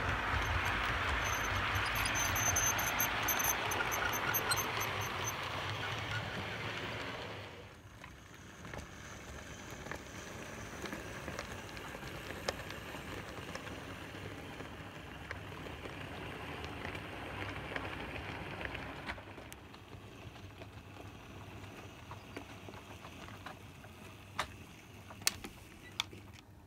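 Model railway train running on its track: a steady rattling hiss of wheels and motor with fine ticking over the rail. It is loudest for the first seven seconds, then quieter after a cut, with a few sharp clicks near the end.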